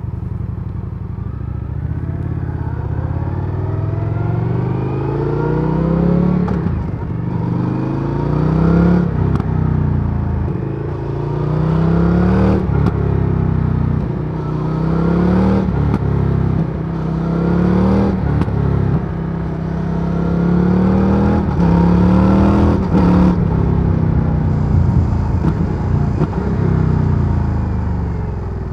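2023 Indian FTR Sport's 1203 cc V-twin through its stock exhaust, ridden hard: the engine note climbs in pitch, drops sharply and climbs again every two to three seconds, over steady wind rush.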